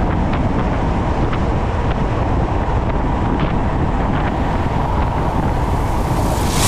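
Subaru BRZ cruising on an expressway: a steady rush of road and wind noise, heavy in the low end, with a few faint ticks and a louder hiss swelling near the end.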